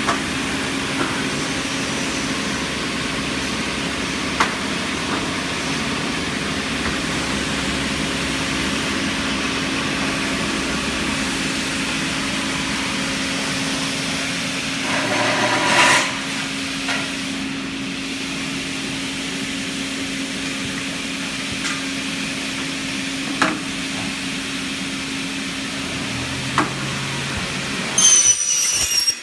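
Ozgenc OMRM113 double-head saw for PVC profiles running with a steady motor hum. About halfway through there is a louder stretch of sawing as a blade cuts a PVC profile, with a few sharp clicks of the machine at other moments.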